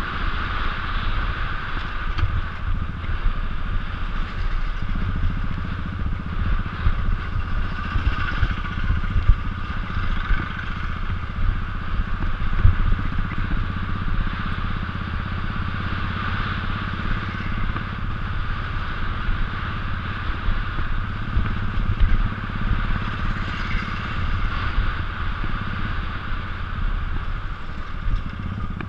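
Royal Enfield 500cc single-cylinder motorcycle engine running steadily while riding, heard through a camera mounted on the bike, with clatter and knocks from a rough brick and dirt road.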